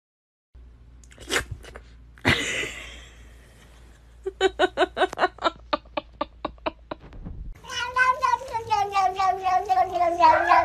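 A thump about two seconds in, then a cat's quick run of short chirping calls, about five a second, and finally one long, drawn-out meow that sags slightly in pitch.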